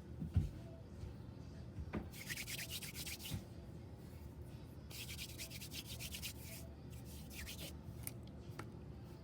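Slime being squished and worked by hand, giving three bursts of fine crackling, the longest about a second and a half, after a soft thump near the start.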